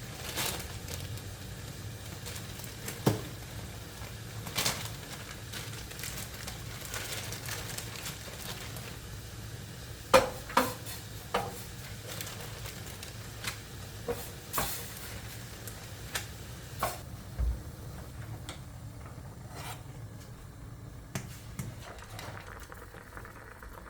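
Food sizzling in a pan, with scattered clinks and knocks of utensils and dishes over a low steady hum. The sizzle fades out in the last few seconds.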